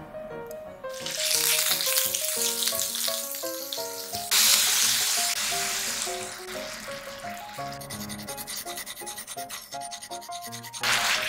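Sliced pork sizzling in oil in a nonstick frying pan, the hiss flaring suddenly louder about four seconds in, then easing off. Near the end comes the scraping rasp of fresh ginger rubbed on a grater.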